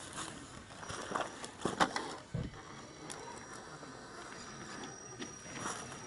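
RC scale crawler with a Defender 90 body on a Gelande 2 chassis picking its way over rocks: a quick run of plastic and tyre clicks and knocks about a second in, the loudest knock near two seconds, then lighter scattered clicks, over a faint steady high-pitched whine from its electric drive.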